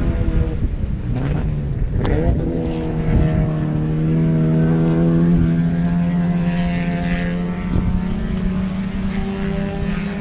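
Ford 302 HO V8 of a 1960 MGA idling steadily through its side-exit exhaust pipes. The engine pitch dips and rises briefly about one to two seconds in, like a short blip of the throttle.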